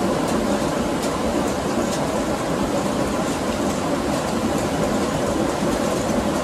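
Traditional water-powered stone mill running: a steady, even rumble of the turning millstone grinding grain, driven by water striking the wheel below.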